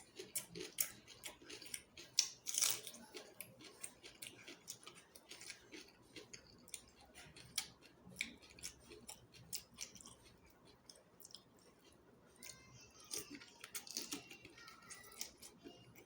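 Close-miked chewing, crunching and mouth clicks of a person eating chicken feet curry with rice and roti, an irregular run of short sharp sounds with a louder one about two and a half seconds in.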